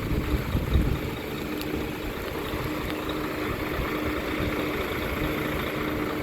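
Heavy diesel engine running steadily at a low, even speed, with a low rumble that is heavier in the first second.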